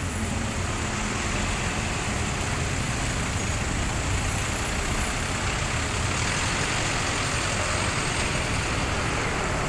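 Heavy construction machinery's engine running steadily: a constant low rumble under a broad rushing noise, with no breaks.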